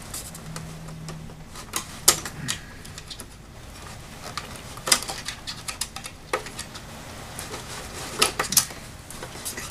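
Small wire connectors being unplugged from an LCD monitor's backlight inverter board: scattered sharp plastic clicks and light handling taps, the loudest about two seconds in, near the middle, and a pair close together near the end.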